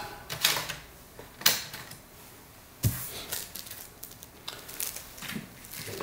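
Scattered clicks and knocks of a CD being ejected from a laptop's disc drive tray and handled. The sharpest knock comes about a second and a half in, and another with a dull thud just before the three-second mark.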